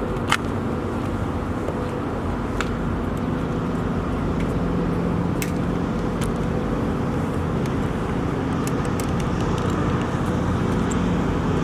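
Steady engine hum with scattered sharp clicks and taps.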